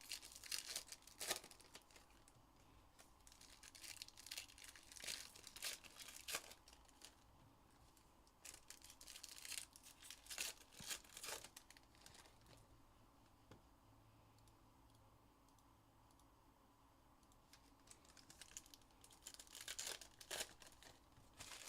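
Trading card pack wrappers being torn open and crinkled, in faint bursts a second or two long with quiet stretches between.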